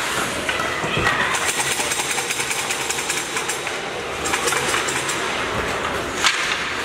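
Ice hockey play: skate blades scraping the ice and sticks clattering over steady arena noise, with two spells of rapid scraping clicks and a sharp knock near the end.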